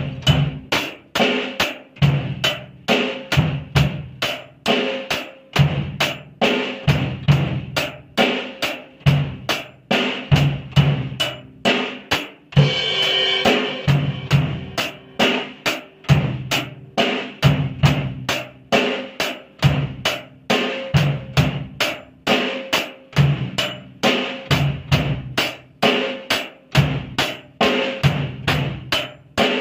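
Acoustic drum kit played at a slow, steady rock beat by a young beginner: bass drum, snare and hi-hat strokes in an even pulse, with a longer cymbal wash about thirteen seconds in.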